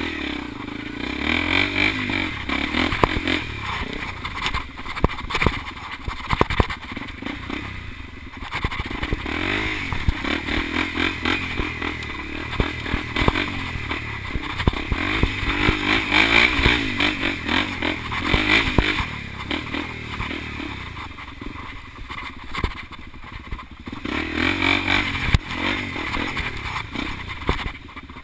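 Dirt bike engine being ridden on a rough trail, its pitch rising and falling again and again as the throttle is opened and closed. Frequent knocks and rattles from the bike run under it, heard from on board.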